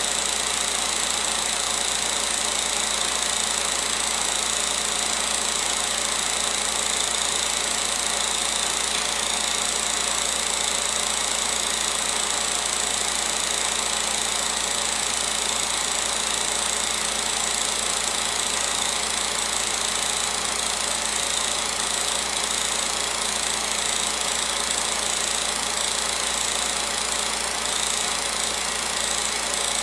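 16mm film projector running, an even mechanical noise that holds steady throughout.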